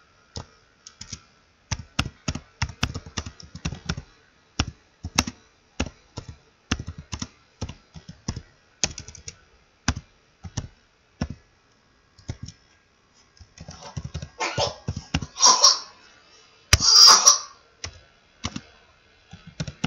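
Computer keyboard typing: irregular single keystrokes as code is entered, with a short pause about two-thirds of the way through. Near the end come a few louder rushing noises, the loudest about three seconds before the end.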